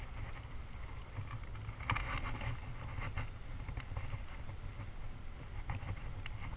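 Low wind rumble on an action camera's microphone, with scattered faint rustles and clicks of a clothing sleeve brushing against the camera, a small cluster of them about two seconds in.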